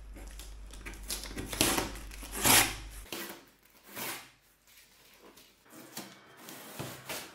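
Packing tape being peeled and ripped off a cardboard box, in several short rips with cardboard rubbing, the loudest about two and a half seconds in.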